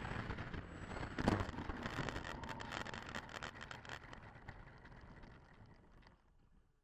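Wind buffeting the microphone in strong gusts, with crackles in the middle, fading away to near silence near the end.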